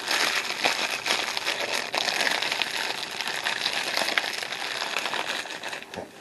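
Packaging crinkling and crackling as it is handled and gathered together, a dense run of small crackles and clicks that fades near the end.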